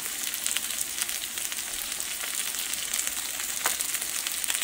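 Diced onion and green bell pepper sizzling in hot oil in a wok: a steady hiss with frequent crackling pops.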